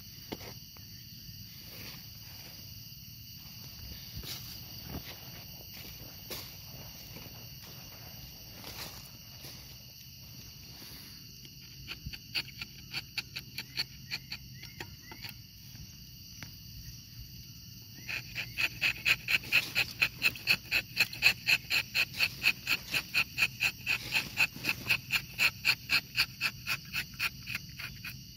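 Steady high-pitched insect chorus, joined about twelve seconds in by a loud pulsing insect call of about three pulses a second, which is loudest from about eighteen seconds in. A few faint clicks come in the first half.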